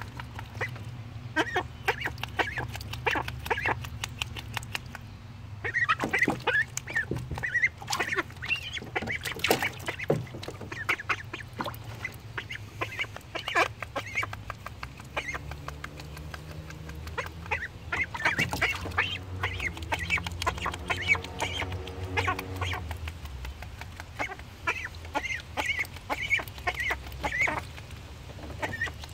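Ducklings calling with quick runs of short, high peeps while dabbling and splashing in a shallow plastic wading pool.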